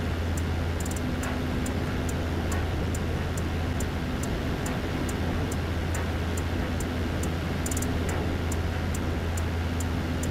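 Ikarus C42 microlight in cruising flight, heard from a camera outside the cabin: a steady low drone of the engine and propeller with wind rushing over the airframe and microphone.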